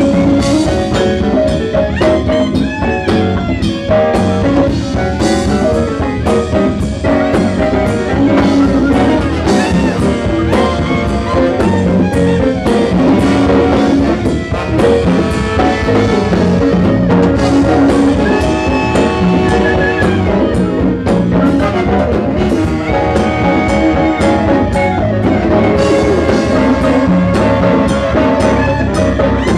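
Live jazz band playing: a horn section of trumpet, trombone and clarinet over a drum kit, with horns sounding held notes together partway through.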